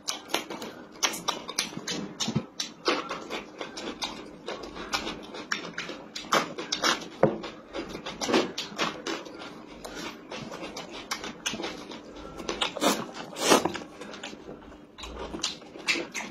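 Close-miked eating sounds: wet chewing and lip smacking of chicken and noodles, with sharp crunchy bites of a raw green pepper, in an irregular stream of clicks and smacks.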